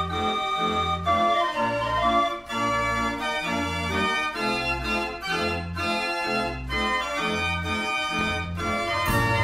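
Instrumental background music: an organ-like keyboard tune over a repeating bass line, changing to another passage near the end.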